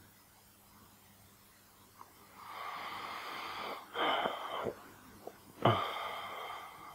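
A person's breath close to the microphone. A long, breathy exhale starts about two and a half seconds in, a sharper breath follows a second later, and another sudden, loud breath comes near the end.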